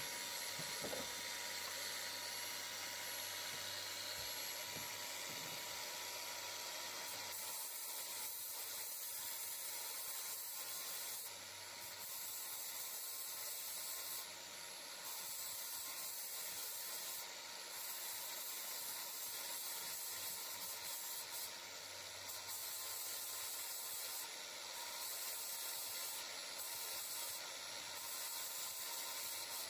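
Small grinder with an abrasive wheel working lightly on the aluminum timing chain cover, a steady hissing run that briefly eases off several times in the second half.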